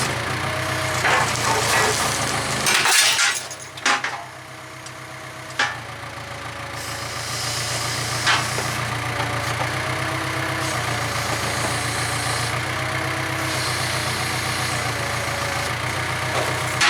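A heavy diesel engine running steadily at idle, with a scatter of sharp knocks and bangs over it. The engine sound drops away for a couple of seconds about three seconds in, then returns.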